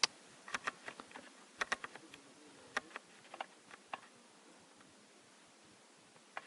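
A quick, irregular series of short sharp clicks, about a dozen in the first four seconds, then quiet.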